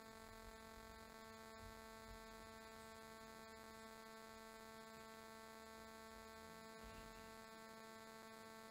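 Near silence with a faint, steady electrical hum, a buzzy stack of even tones that does not change.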